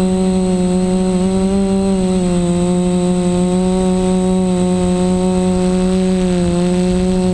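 Quadcopter's DJI 920 KV brushless motors and propellers buzzing in flight, a loud, steady hum heard from the camera mounted on the frame. Its pitch sags slightly about two seconds in and dips briefly near the end.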